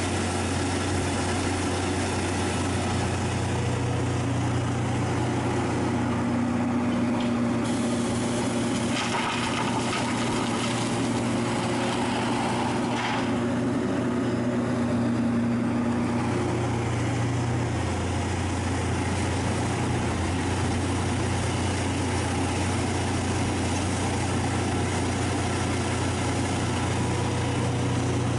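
Hitachi Zaxis 470 LCH excavator's diesel engine and hydraulics running steadily, a deep drone with a higher steady whine through the middle. About a third of the way in, soil rushes from the bucket into the steel tipper trailer.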